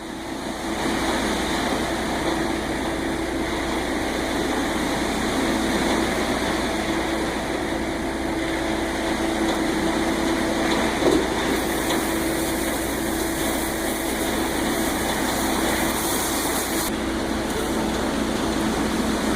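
Concrete mixer truck's engine running steadily, a continuous even hum with a steady pitch.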